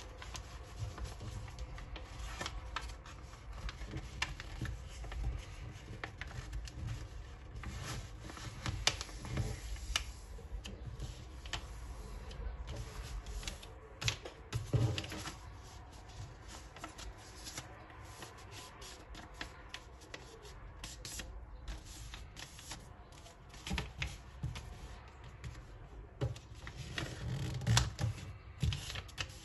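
A sheet of paper being folded and creased by hand into a paper airplane: a run of crisp rustles, crinkles and creasing swipes, with louder rustles about nine, fifteen and twenty-eight seconds in.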